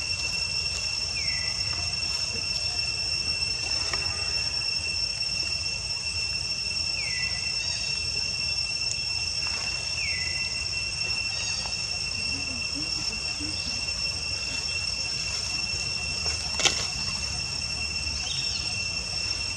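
Steady high-pitched drone of insects, such as cicadas or crickets, over a low background rumble. Three short falling chirps break in during the first half, and a single sharp click, the loudest moment, comes near the end.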